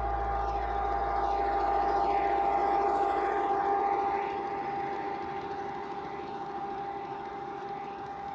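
Garden-scale model diesel locomotive's electric motor and gearing whining steadily as it runs past with its freight cars rolling along the track. It is loudest about two to three seconds in, then gradually fades as the cars follow.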